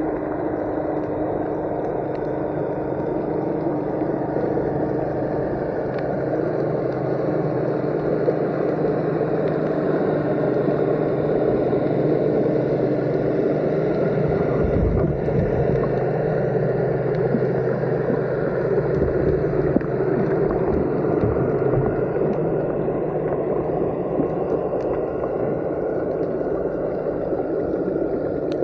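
Underwater ambience picked up by a submerged camera: a steady dull rush of water with a low hum running through it. One higher strand of the hum fades out about halfway through.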